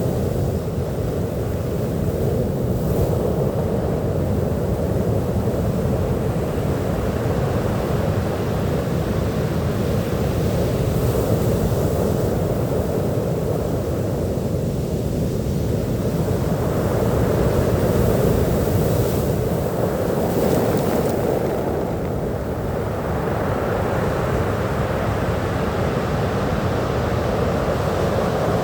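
Sea waves washing onto a beach: a continuous low rush of surf, with the higher hiss of breaking water swelling and falling back every few seconds.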